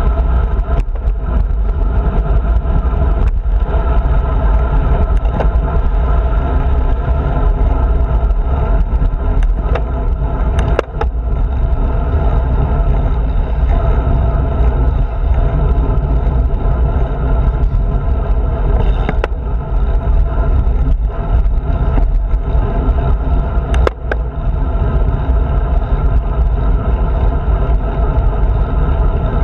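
Steady wind and rolling road noise on a handlebar-mounted action camera as a road bike rides along a paved park road, with a few sharp clicks.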